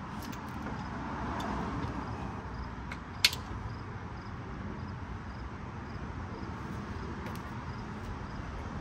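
Bolt hardware being handled and hand-threaded into a metal bumper bracket: a steady low background rumble, with one sharp click about three seconds in and a few faint ticks.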